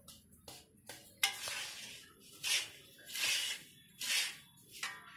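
Metal spatula stirring and scraping a dry, crumbly gram-flour (besan) ladoo mixture around a metal pan: about five short scraping swishes at irregular intervals, the first starting sharply about a second in.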